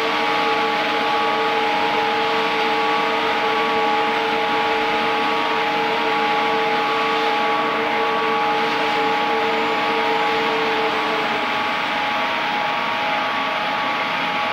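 Chiller plant-room machinery running with a steady loud drone and several steady whining tones; the strongest whine stops about eleven seconds in as one unit is switched off in the automatic shutdown sequence.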